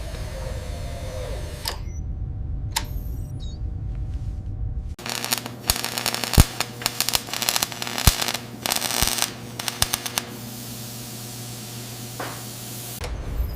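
Clicks and knocks of hand-tool work on equipment over a low rumble. About five seconds in, a dense run of sharp clicks and knocks starts and lasts several seconds, then gives way to a steady hiss until near the end.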